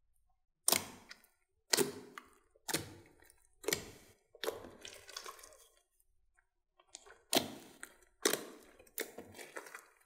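Hands squishing and kneading glossy slime mixed with foam and foam beads: each press gives a sudden wet squelch with crackling that fades quickly, about once a second, with a short lull about six seconds in.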